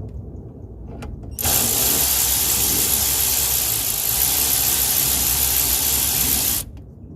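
Cordless ratchet with a 15 mm socket running steadily for about five seconds, starting a little over a second in and cutting off abruptly. It is set in reverse, so it backs the brake caliper bolt out instead of tightening it.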